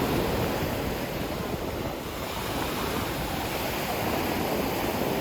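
Ocean surf washing steadily on the shore, swelling and easing.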